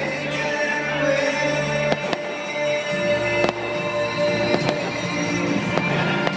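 Fireworks popping and crackling, with irregular sharp cracks about every half second to second. Loud music with held tones plays throughout.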